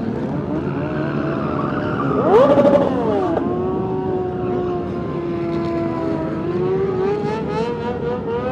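Several motorcycle engines running together in slow group traffic. One bike revs sharply about two seconds in, its pitch rising and falling quickly. The engines then hold a steady note and pick up a little near the end.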